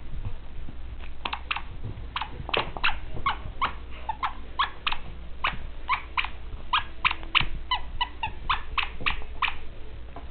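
Dachshund puppy chewing a squeaky plush toy: a steady run of short, high squeaks, about three a second, that stops shortly before the end.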